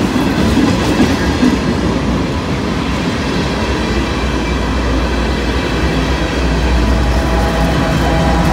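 Freight cars of a long train rolling past with wheel clatter on the rails. About halfway through, the low drone of a Norfolk Southern GE AC44C6M diesel locomotive, a distributed-power unit within the train, comes in and grows as the unit comes alongside.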